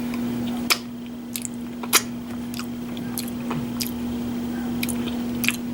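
Close-up chewing of deviled eggs: soft, wet mouth smacks and clicks about every half second, over a steady low hum.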